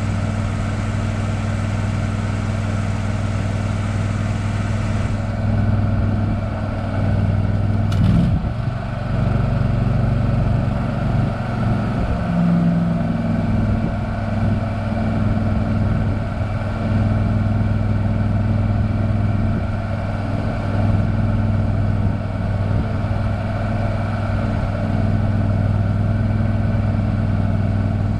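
An engine running steadily at low speed, with a single sharp click about eight seconds in.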